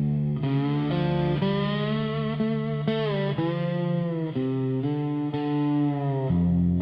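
Instrumental break of a dark country song: an electric guitar with effects plays slow, long-held lead notes, several of them bent in pitch, over a steady bass.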